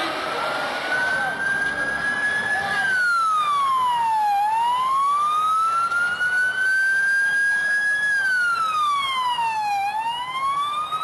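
Emergency vehicle siren wailing: its pitch climbs slowly, then drops quickly, twice, with street noise underneath during the first few seconds.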